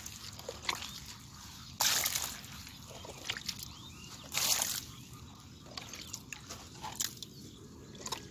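Muddy water sloshing and splashing as a small metal bowl scoops it out of a shallow mud pit by hand, with three brief splashes roughly two and a half seconds apart.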